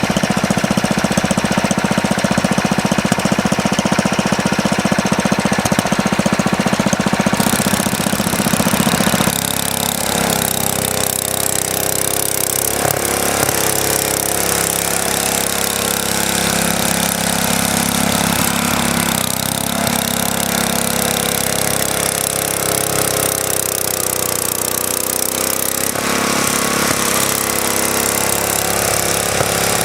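Vintage Wheel Horse garden tractor's engine running under load while plowing snow. About nine seconds in it gets a little quieter and its pitch shifts, then it runs on with the note wandering up and down.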